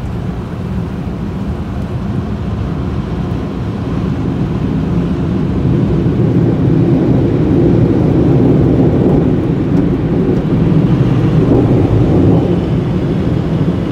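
Automatic car wash machinery heard from inside the car: a loud, steady rushing rumble that swells about halfway through and eases a little near the end.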